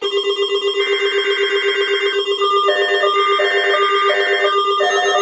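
Electronic alert tone pulsing rapidly, about six or seven times a second, with a short pattern of higher notes repeating over it from about halfway, like a synthesizer ringtone.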